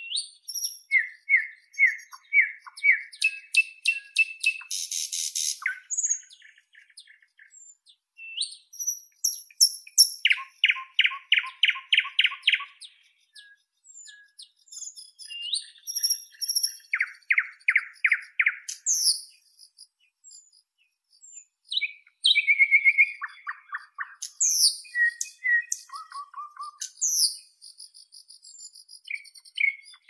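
A songbird singing varied phrases with pauses between them: fast runs of the same note repeated many times, high whistles and trills.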